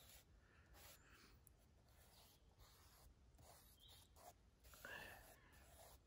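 Near silence with the faint scratch of a drawing tool on paper as curved lines are sketched in short strokes, one a little louder about five seconds in.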